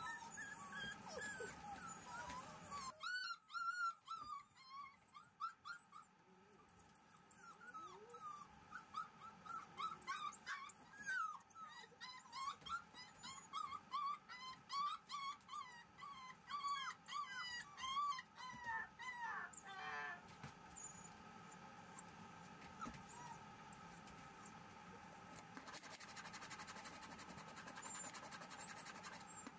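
Black female Shiba Inu puppy giving many short, high-pitched whines and yips in quick succession, thinning out after about twenty seconds.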